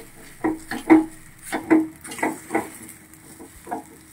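Metal spoon scraping and stirring thick rice-flour dough in a metal kadai on the stove, in irregular strokes about two a second. The dough is sticking to the pan as it heats.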